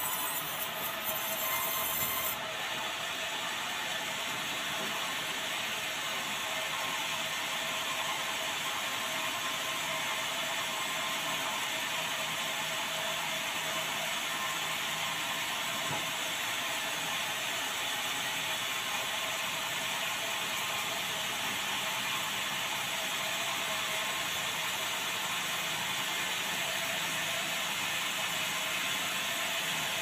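Band sawmill headrig sawing dry bengkirai (yellow balau) hardwood into a beam: a steady, continuous rasp and whine of the blade in the timber. A high whine present at the start drops out about two seconds in.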